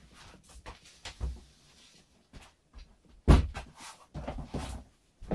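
Unboxing handling noise: scattered light knocks and rustles of boxes and packaging being moved, with one louder thump about three seconds in.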